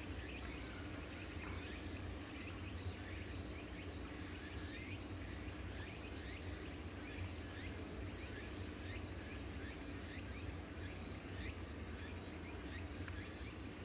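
Outdoor ambience: small birds chirping, short high chirps coming every second or so, over a low steady rumble.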